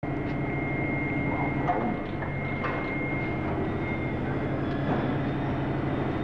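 Steady low drone with a thin high whine held over it, and a few faint clicks.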